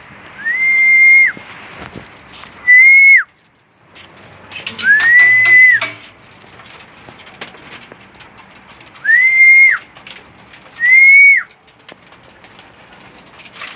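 Five loud, clear whistles, each a high held note that drops sharply at the end, typical of a pigeon keeper calling racing pigeons into the loft. Faint scattered clicks and rustles sound between them.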